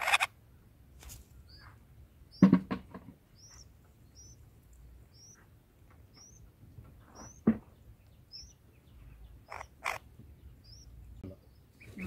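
Bulbuls at the nest chirping: a thin, high, rising chirp repeated about every half second. A few sharp knocks or rustles come through it, the loudest about two and a half and seven and a half seconds in.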